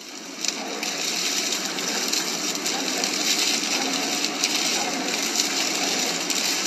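Loud, steady rushing of storm wind from a tornado, with a brief dip right at the start.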